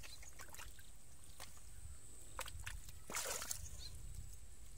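Hands sloshing and groping through shallow muddy water for catfish, with a few short splashes, the loudest about three seconds in, over a low steady rumble.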